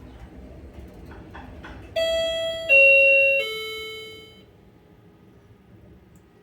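Elevator's electronic chime: three descending tones, ding-ding-dong, the last fading out over about a second. A few faint clicks come just before.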